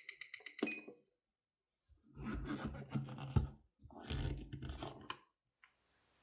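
Mechanical watch movement ticking fast, about eight beats a second, as a 28,800 vph Zenith calibre 2562PC does; it stops with a click under a second in. Two rough scraping, rustling handling sounds follow, each about a second long.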